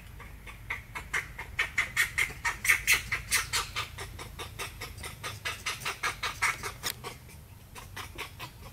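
An animal giving a rapid series of short clucking calls, about five a second for some six seconds, loudest in the middle, then a few more just before the end.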